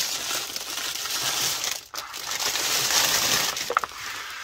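Crinkly packaging wrap being crumpled and pulled off by hand: a loud, dense crackling, with a brief pause about two seconds in, that eases off near the end.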